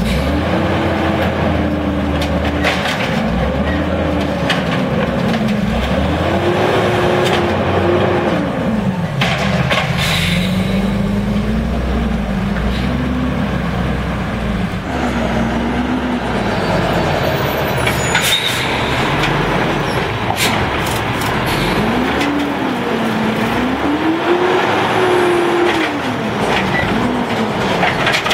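Natural-gas automated side-loader garbage truck's engine revving up and falling back again and again as it drives the hydraulic arm lifting and dumping a cart. Several sharp metal clanks come in between.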